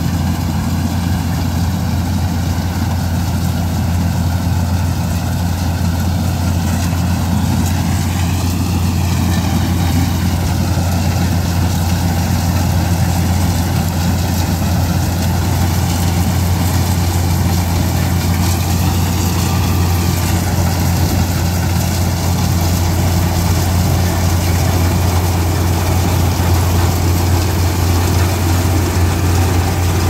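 Kubota DC-95 combine harvester's diesel engine running steadily under load as it harvests rice, with a deep, even hum. A higher whine in the machine's sound bends up and back down twice, about a third of the way in and again past the middle.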